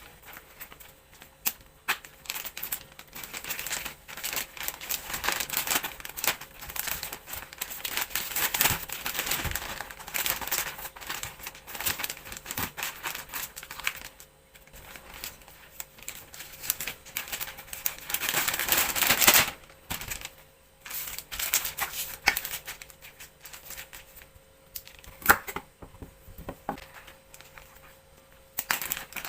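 Plastic packaging being handled, crinkling and rustling in uneven spells with a few sharp clicks; the longest loud crinkle comes a little after the middle.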